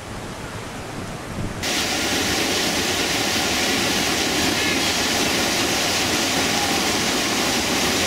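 Steady rushing of whitewater rapids, turning louder and brighter about a second and a half in.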